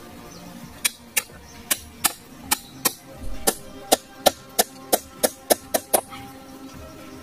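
A hatchet knocking short bamboo stakes into sandy ground: about fifteen sharp wooden knocks, starting about a second in and coming faster in the second half.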